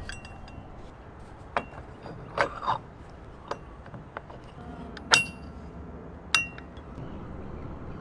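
A handful of separate sharp clinks and knocks from tools and materials being handled, the loudest about five seconds in, over low steady background noise.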